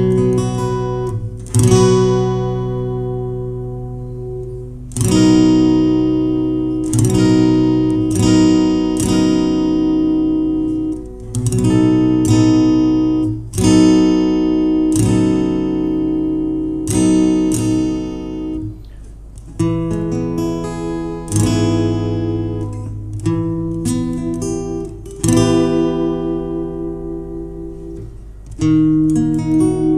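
Acoustic guitar with a capo at the fourth fret, strummed through a slow chord progression (G, Gmaj7, G7, Cm). Each chord is left to ring and fade. About two-thirds of the way through, the strokes become shorter and come faster.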